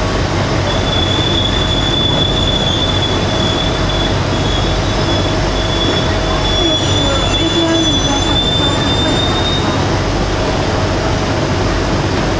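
Beijing Metro SFM04 subway train heard from inside the carriage, running on the rails: a loud steady rumble with a high, thin squeal of the wheels on the rail and a fainter steady tone, as the train draws into a station.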